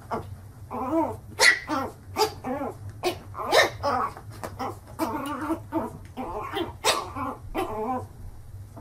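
A puppy barking at its own reflection in a mirror: a rapid series of short yappy barks with brief pauses, stopping shortly before the end.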